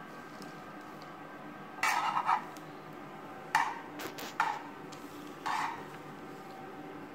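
Several brief scraping and clattering handling noises, four short bursts over a faint steady hum, as food and utensils are moved about.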